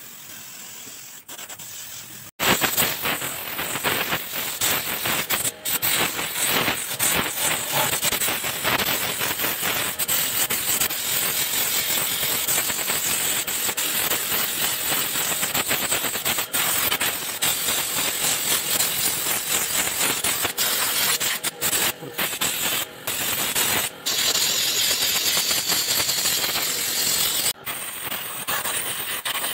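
Aerosol spray-paint can spraying in a long, loud, rough hiss that starts abruptly about two seconds in, broken by a few brief pauses in the last third where the nozzle is let go.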